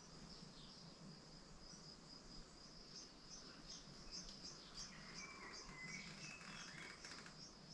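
Near silence with faint, high-pitched insect chirping, about three chirps a second over a steady high tone.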